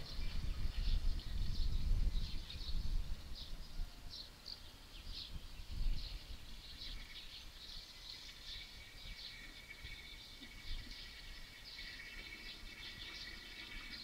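Water poured from a plastic watering can into the neck of a gas cylinder, trickling in, with many short bird chirps over it and a steady high tone from about halfway through.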